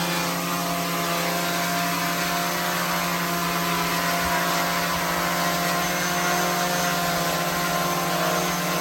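DJI Mavic 3 drone hovering: a steady hum from its propellers and motors, with a faint high squeak over it. The owner takes the squeak as a fault and plans to send the drone to DJI.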